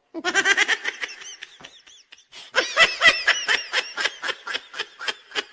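High-pitched laughter in rapid, repeated bursts, a meme laugh sound effect; it starts just after a moment of silence and runs in two stretches with a short break about two seconds in.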